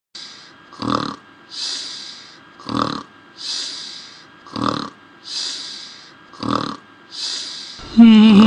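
Cartoon unicorn snoring in its sleep: four even cycles, each a short snort in followed by a long breathy exhale, about every two seconds. Near the end comes a louder, rattling, wavering snort.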